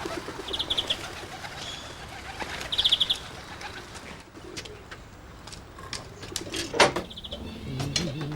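Birds calling, with two short, rapid chirping trills about a second in and near three seconds, and a fainter one near the end. A sharp knock sounds shortly before the end.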